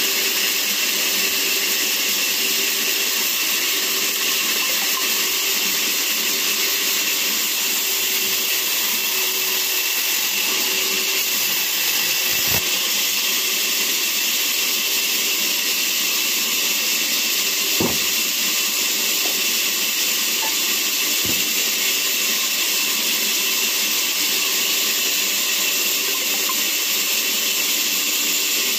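Large vertical band saw running and ripping a tree log lengthwise, a loud steady hiss with no let-up. Three dull knocks come past the middle.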